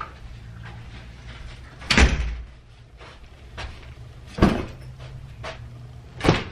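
Hotel room door swinging shut with a heavy thump about two seconds in, followed by two more sharp knocks and thuds and a few faint clicks as someone moves about the room.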